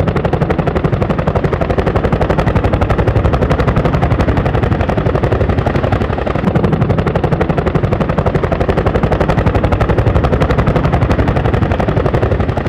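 CH-47 Chinook tandem-rotor helicopter running, its rotor blades beating in a fast, steady, even chop.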